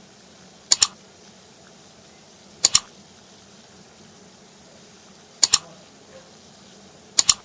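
Four sharp double clicks, each two quick ticks close together, coming every two to three seconds over a faint steady hiss of boiling water.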